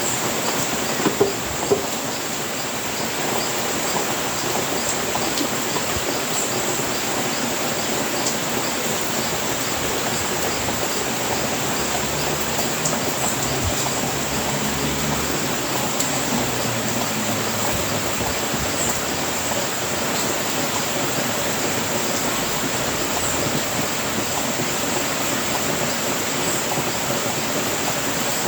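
Steady rain falling, an even hiss with no let-up, with a few sharp taps about a second in.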